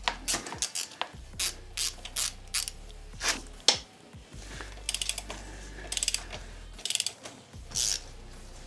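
A ratchet wrench clicking in short runs of rapid ticks, with sharp metallic knocks in between, as bolts are worked on while the wheel is taken off.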